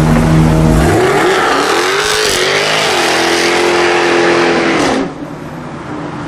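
Jaguar F-Type R's supercharged V8 revving hard under acceleration: the engine note climbs, dips briefly, holds at high revs, then drops off suddenly about five seconds in.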